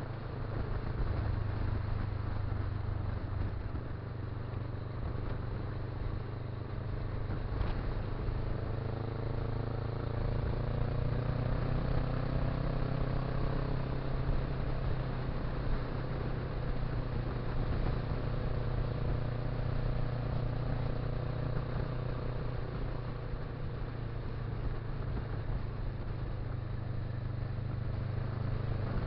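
Motorcycle engine running at road speed under steady wind and road noise. Its pitch rises for several seconds around the middle as the bike speeds up, then settles.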